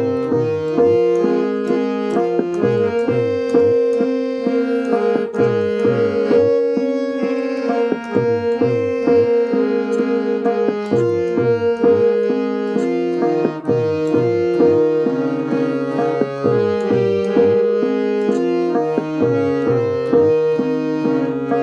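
Harmonium playing a melodic interlude in Raag Yaman over a steady drone, with tabla keeping the rhythm and its bass drum strokes sliding down in pitch.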